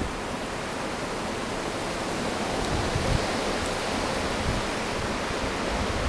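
Blizzard wind gusting through the trees: a steady rushing that swells slightly in the middle, with a few low thumps of wind buffeting the microphone.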